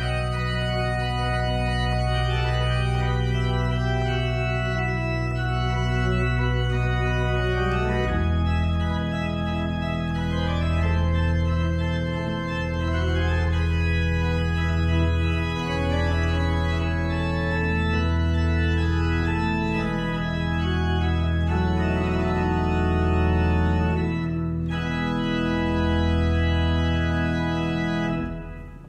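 Church organ playing sustained chords over a held bass; the bass drops to a lower note about eight seconds in, and the music ends near the close.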